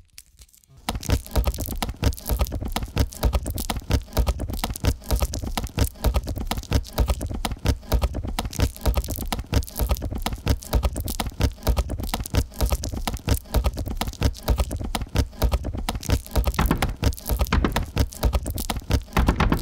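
Rain falling on a plastic bag and crisp packet: a dense, irregular patter of sharp taps and crackles that starts suddenly about a second in and keeps on.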